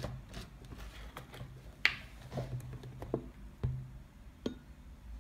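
A handful of light clicks and soft knocks from handling a plastic bottle of liquid detergent as it is uncapped and tipped over a bowl, the sharpest click a little under two seconds in.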